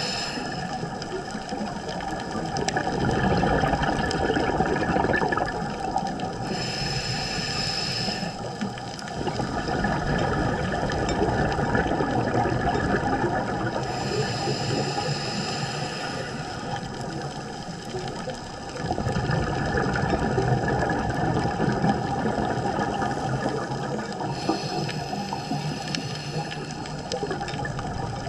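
Scuba breathing through a regulator, heard underwater: a short hiss on each inhale, repeating about every eight to ten seconds, alternates with stretches of bubbling from exhaled air.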